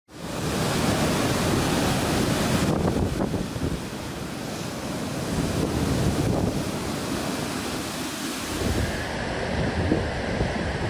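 Storm waves surging and breaking against a seawall, a continuous heavy rush of surf with strong wind buffeting the microphone. About nine seconds in the sound turns duller and more rumbling as it switches to waves crashing over a harbour breakwater.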